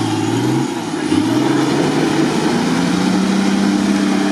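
Nissan Patrol 4x4's engine revving hard under load as it climbs out of a muddy ditch. The revs dip briefly just under a second in, rise again, then hold at a higher steady pitch from about the middle on.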